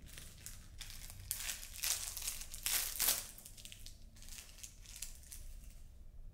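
Crinkling and rustling, like wrapping or packaging being handled: a run of crackling strokes, loudest about two to three seconds in.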